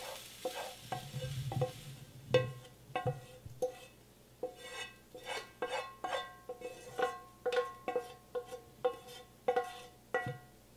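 A utensil scraping and tapping cooked onions and peppers out of a metal frying pan into a slow cooker, about two knocks a second, each one making the pan ring briefly.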